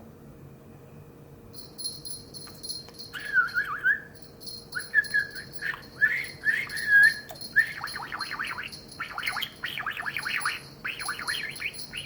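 Pet budgerigar warbling: wavering chirps from about three seconds in, turning into fast, continuous chatter in the second half. A steady high-pitched sound runs behind it from about a second and a half in.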